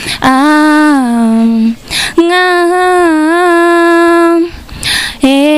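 A young student singing a Swahili love song unaccompanied into a handheld microphone: three long held, slowly bending notes with audible breaths between them, about two and five seconds in.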